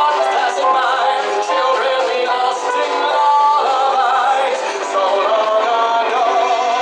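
A man singing with vibrato into a microphone over live band accompaniment of piano, bass and drums.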